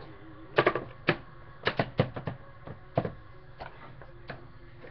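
Trading-card boxes being handled and set down on a stone countertop: a run of sharp knocks and clacks, several coming close together about two seconds in.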